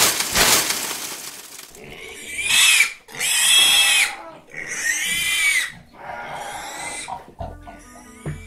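Pig squealing sound effect: three separate rising-and-falling squeals, after a sudden loud rushing burst at the start. Music begins near the end.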